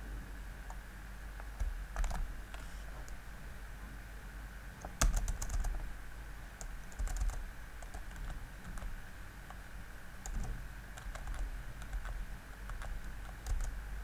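Typing on a computer keyboard: irregular runs of keystroke clicks, the loudest cluster about five seconds in, over a faint steady hum.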